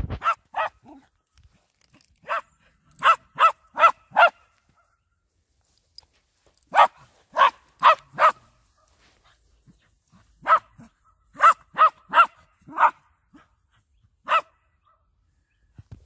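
Small terrier giving play barks during a romp: about seventeen short, high yaps in bursts of two to five, with pauses of a second or two between bursts.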